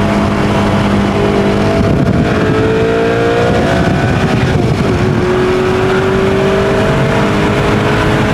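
Maserati Quattroporte engine pulling under acceleration, its pitch climbing steadily. About four and a half seconds in the pitch drops sharply as it shifts up a gear, then it climbs again.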